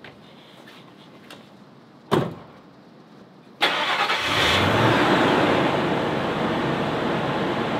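Pickup truck's driver door thumps shut about two seconds in. About a second and a half later the engine starts suddenly and keeps running at a steady idle.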